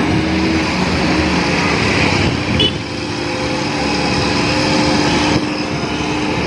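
Hitachi hydraulic excavator's diesel engine running steadily under load as the arm and bucket dig and push soil.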